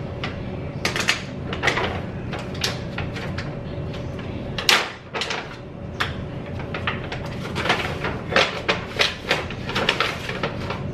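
Irregular knocks, taps and rustles of kitchen handling: a measuring cup scooping waffle mix from a paper bag and tapping against a plastic mixing bowl. A faint steady hum sits underneath.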